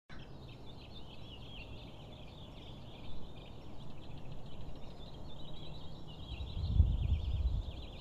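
Many birds calling and chirping at once, a steady overlapping chorus of short high calls. Underneath, a low rumble of wind on the microphone that gusts louder near the end.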